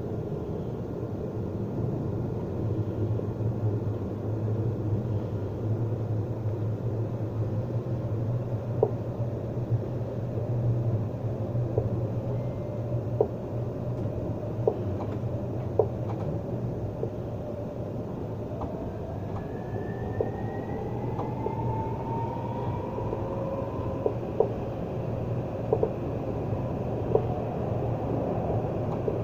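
Alstom Citadis 302 tram heard from inside the passenger saloon while running: a steady low rumble with scattered sharp clicks. About two-thirds of the way through, the electric traction whine rises in pitch as the tram picks up speed.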